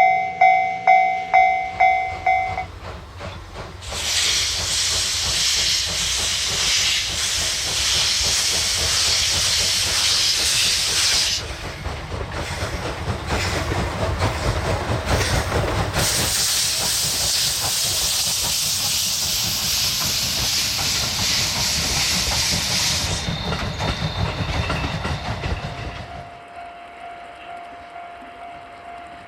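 Steam locomotive D51 200 passing with its train: a deep rumble with two long, loud hisses of steam, and the rumble dies away near the end. At the start a repeating ding, about two a second, stops after a couple of seconds.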